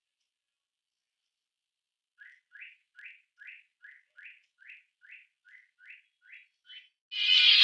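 A series of about a dozen short rising chirps, a little over two a second, after a stretch of near silence. A song cuts back in loudly near the end.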